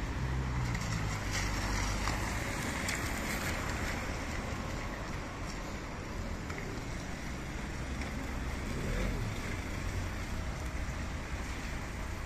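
Street traffic on wet paving: cars passing with tyres hissing on the wet road over a low engine rumble, the hiss swelling in the first few seconds as a car goes by.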